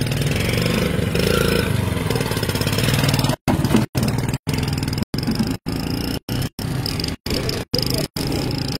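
Motorbike engine running steadily. After about three and a half seconds the audio keeps cutting out for short moments, about twice a second, like a stuttering stream.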